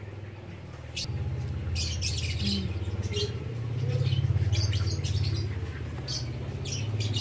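Birds chirping in short, scattered calls over a low droning rumble that comes in about a second in, grows loudest midway and then eases off.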